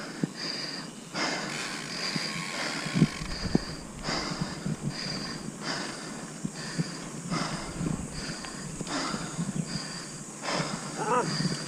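A mountain biker's fast, heavy breathing, about one or two breaths a second, from the exertion of riding, over the noise and rattle of the bike on a dirt track. A short voiced grunt comes near the end.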